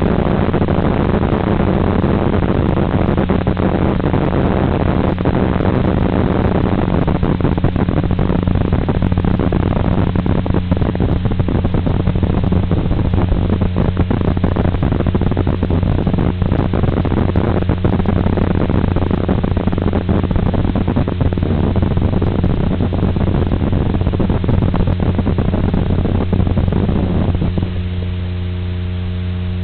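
Audio carried by an FPV model aircraft's video link: a steady electrical buzz under a rushing noise with scattered crackles. A little before the end, as the aircraft comes to rest on the ground, the rushing noise drops away and only the buzz remains.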